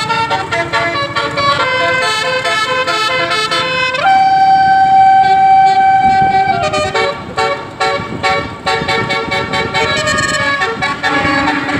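Bus 'telolet' basuri horn, a set of musical air horns playing a tune: quick changing notes, then a short upward slide into one long held note about four seconds in, lasting a couple of seconds, then more short notes.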